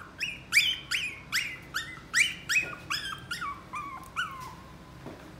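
Chihuahua puppy whining in a quick run of about a dozen high-pitched yips, each swooping up and then trailing off, stopping shortly before the end.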